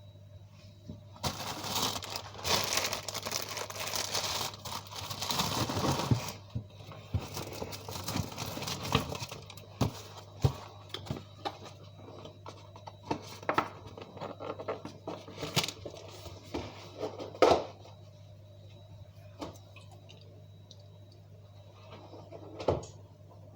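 Food packaging crinkling and tearing for about five seconds, then scattered sharp clicks and knocks of things being handled, over a steady low hum.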